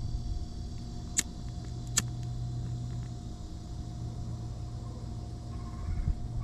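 Two sharp clicks about a second and two seconds in, a lighter being struck to heat hot-melt glue, over wind rumbling on the microphone and a steady low hum.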